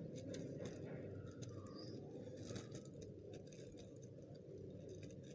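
Faint crinkling and rustling of small plastic zip-lock seed packets and a plastic courier bag being handled, as scattered soft clicks over a steady low background noise.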